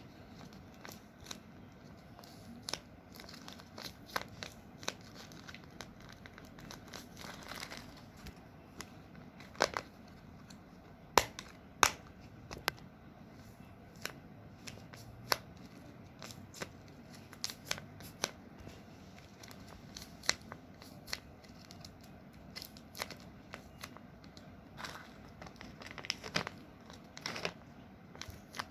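Paper and tape crinkling and crackling in irregular sharp snaps as homemade paper squishies are handled and squeezed, with a few louder crackles about eleven and twelve seconds in.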